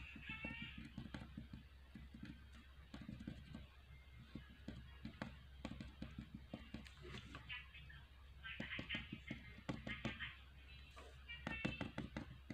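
A crayon rubbed back and forth on paper while colouring, making light scratchy strokes with quick taps and clicks, under faint voices and a low hum.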